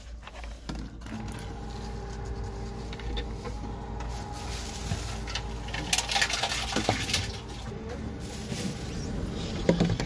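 Reverse vending machine taking plastic deposit bottles: a steady motor hum starts about a second in, with clicks and rattles as bottles are fed in and carried off, and a sharp knock near the end.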